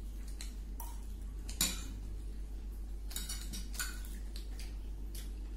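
Cutlery clinking and scraping against a dish during eating: a string of short, irregular clicks, the sharpest about a second and a half in, over a steady low hum.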